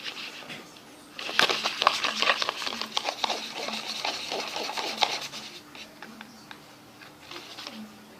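A spoon or stirrer scraping and clicking against a container while liquid dish soap and shampoo are stirred together, in a quick busy run from about a second in to about five seconds, then fainter scattered clicks.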